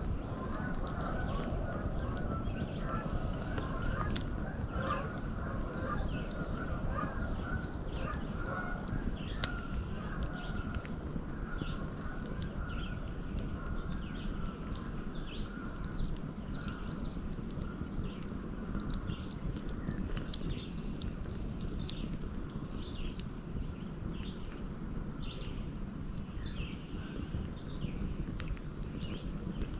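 Many birds calling, a dense chorus in the first half, with shorter high calls continuing throughout, over a steady low rush. A few sharp crackles from a wood fire.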